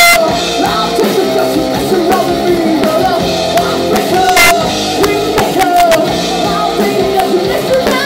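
Live rock band playing: a woman sings over electric guitar and a drum kit, with cymbal crashes at the start and again about halfway through.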